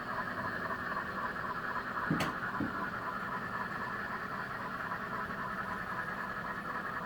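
Steady room noise with a hiss. About two seconds in there is one sharp click, with two short low knocks around it.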